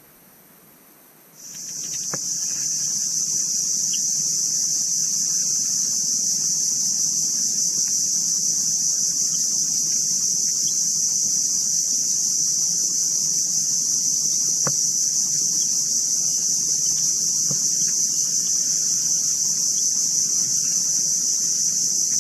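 Steady, high-pitched drone of insects that comes up about a second and a half in and then holds level, with a few faint clicks over it.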